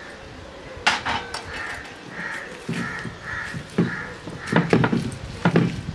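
A heavy stone grinding roller thudding down on garlic cloves and shallots against a stone grinding slab, crushing them, with sharp knocks about a second in. A bird calls about five times in a row in the middle.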